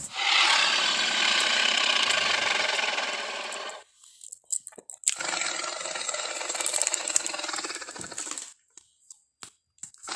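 Two dinosaur-monster roar sound effects for Gorosaurus, made from Torvosaurus sounds: a long rasping roar of nearly four seconds, then a few short clicks and a second harsher, rattling roar of about three seconds, with more clicks near the end.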